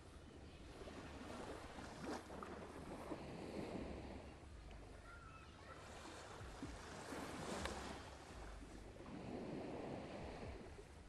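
Ambient bed of waves and wind, a noisy wash that swells and fades every few seconds, with a few faint clicks.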